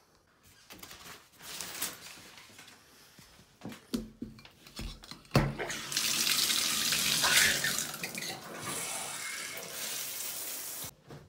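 A few knocks and bumps, then a shower starts: water spraying steadily from a handheld shower head, from about six seconds in until it stops abruptly near the end.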